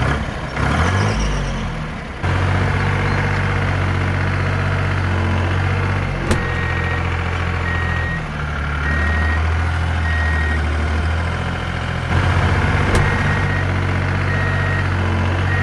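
A vehicle engine running steadily, joined about six seconds in by a reversing alarm beeping about once a second.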